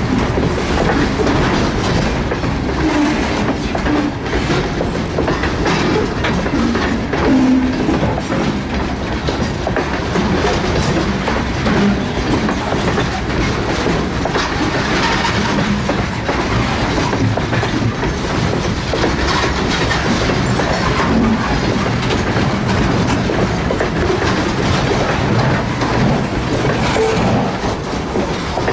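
Freight train of boxcars rolling past close by: a steady rumble of steel wheels on the rails, with rapid clicking and clacking as the wheels pass over rail joints.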